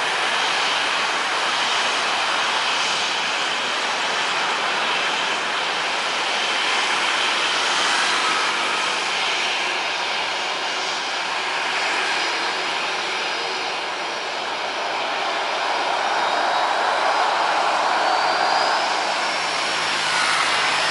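Boeing 737-800's CFM56 jet engines running as the airliner rolls along the runway: a steady rushing jet noise, with a thin whine rising in pitch near the end.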